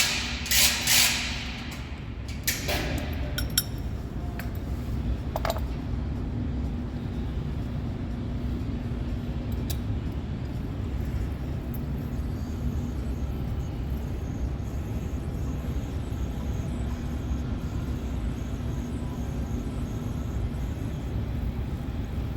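A few clinks and knocks from an oil bottle and filler being handled in the first few seconds. After that comes a long steady low hum while motor oil is poured into the engine.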